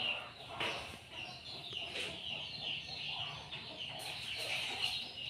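Birds chirping throughout: a quick, steady run of short, high, falling notes, with two soft knocks, one under a second in and one about two seconds in.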